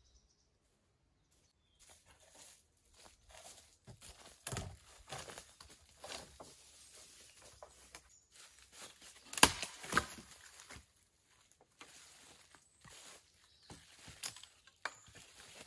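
Footsteps crunching and rustling through dry leaf litter, starting about two seconds in, as a long dead branch is handled and pulled about. Two sharp cracks of dry wood stand out about nine and ten seconds in.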